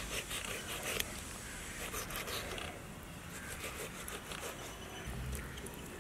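Knife and fingers cutting and peeling the thin membrane from a raw goat carcass: irregular soft wet clicks and small tearing sounds.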